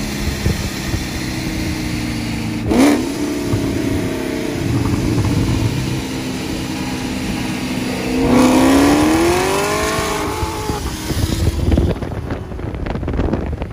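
Performance car engines running side by side at speed. One engine gives a short rev about three seconds in, then accelerates hard from about eight seconds, its pitch climbing and then falling away. Wind noise follows near the end.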